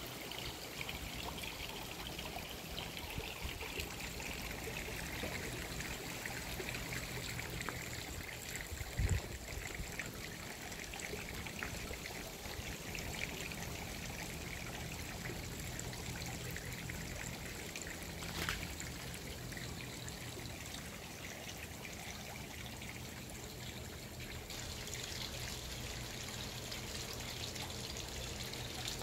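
Water trickling and splashing steadily from a tiered garden fountain, with a brief low thump about nine seconds in.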